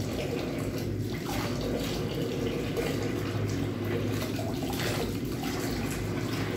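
A tap running steadily into a basin, its stream splashing over a wet cat being washed under it.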